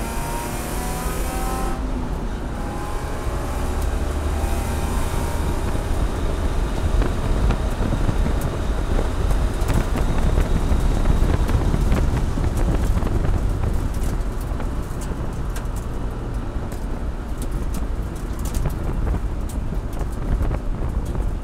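Race car engine heard from inside the cockpit, revving up and breaking off twice in the first few seconds as it shifts up. It then runs hard down a straight and eases off as the car slows, with sharp clicks and rattles through the second half.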